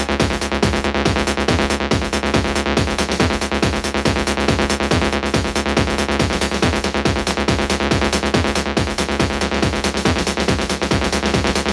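Electronic dance music in a techno-trance style from a DJ mix, with a steady kick drum on every beat under layered synth sound and no vocals.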